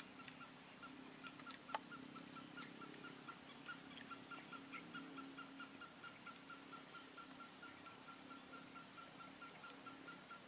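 Swamp ambience: a steady high-pitched insect chorus with an even, rapid chirping of about five chirps a second and a low drone underneath. A single sharp click comes a little under two seconds in.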